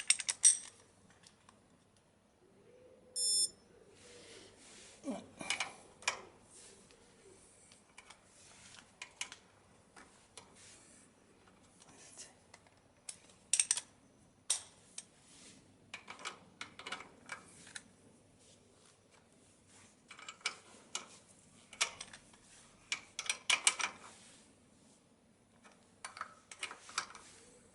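A digital torque meter gives one short electronic beep about three seconds in. Then comes ratchet clicking in repeated bursts as the spindle cap nuts on a Triumph T140's forks are tightened to an even torque.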